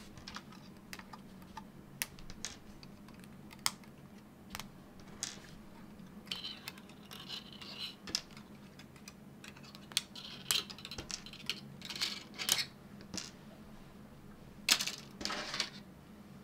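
Small 3D-printed PLA parts being snapped off a printed kit card and set down on a cutting mat: irregular sharp plastic clicks and snaps, with a few short scraping sounds.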